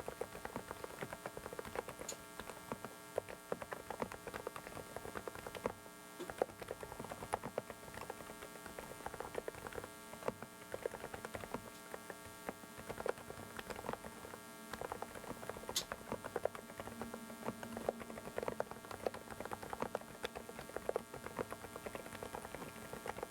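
Typing on a Dareu mechanical keyboard: a fast, irregular run of keystrokes clacking, over a steady electrical noise from a faulty microphone.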